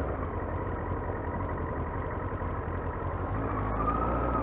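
Yamaha R6 sport bike's inline-four engine running steadily, picked up with wind noise by a helmet-mounted mic. A tone in the engine sound rises slightly near the end.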